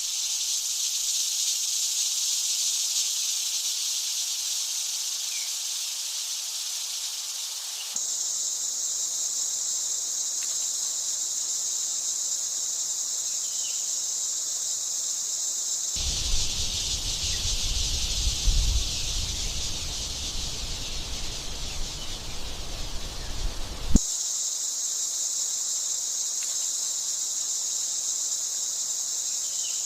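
Steady, high-pitched chorus of insects, changing abruptly three times as it goes. For a stretch past the middle, a low rumble and a few knocks join it.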